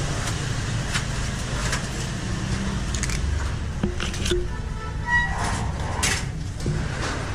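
Steady low rumble of street traffic, with scattered clicks and knocks of a person going through a metal gate up to a wooden door, and a short squeak about five seconds in.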